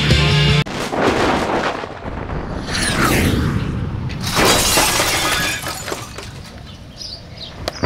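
Music cuts off suddenly, then a few loud crashes and rushing noises follow, like things smashing and shattering.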